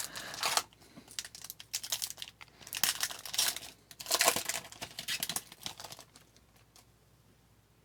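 Hockey card pack wrapper being torn open and crinkled, in several uneven bursts that stop about six seconds in.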